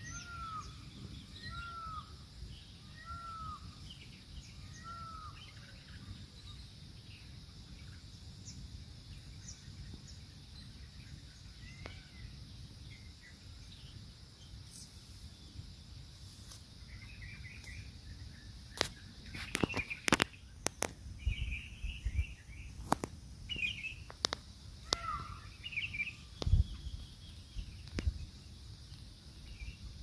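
Wild birds calling in scrub forest: a repeated arched call about every second and a half for the first few seconds, then scattered chirps. Past the middle, a run of loud, sharp clicks and knocks stands out over them.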